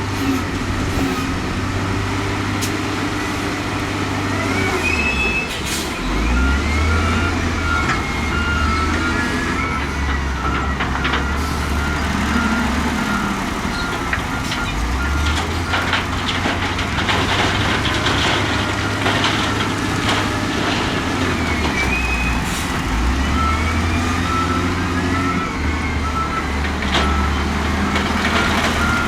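Diesel engine of heavy earthmoving machinery working under load, its revs rising and falling. A reversing alarm beeps steadily for stretches, and metal clanks and rattles come in the middle.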